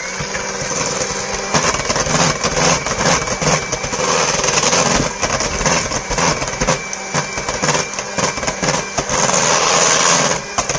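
Red KitchenAid electric hand mixer running steadily, its twin wire beaters churning thick cake batter as an egg is beaten in. A steady motor hum and whine are heard, with rapid rattling and ticking from the beaters against the stainless steel bowl.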